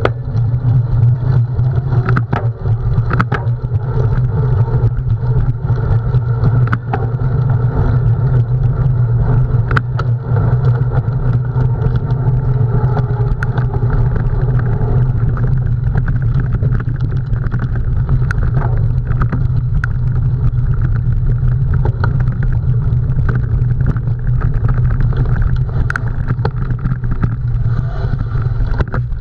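Steady rumble of wind and tyre noise from a cyclocross bike ridden at race pace over rough ground, with frequent sharp clicks and rattles from the bike.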